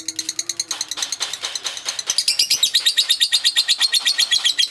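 A bird chirping in a rapid, even series of high notes, about ten a second, growing louder about a second in.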